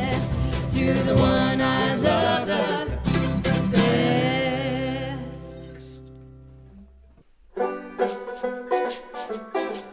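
Acoustic bluegrass band music: the song closes on a final chord that rings and fades away over a few seconds. After a brief silence about seven and a half seconds in, the next tune starts with quick plucked-string picking.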